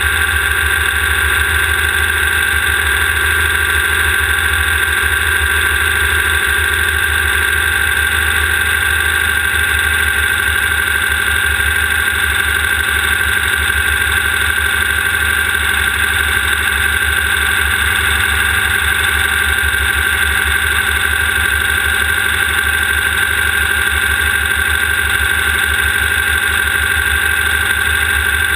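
Class 1600 off-road race car's air-cooled 1600cc Volkswagen flat-four engine running steadily, picked up close by a camera mounted on the back of the car. Its pitch holds level, over a constant pulsing low rumble.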